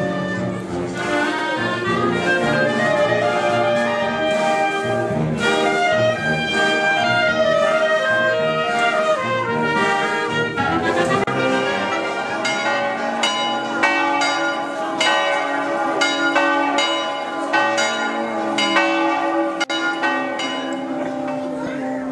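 Brass band playing, trumpets and trombones carrying the tune over many held notes, with a steady beat of sharp strokes from about halfway through.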